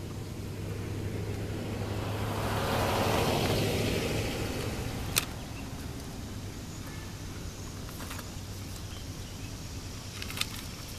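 A vehicle passing by, swelling and fading a few seconds in, over a steady low hum, with a single sharp click a little later.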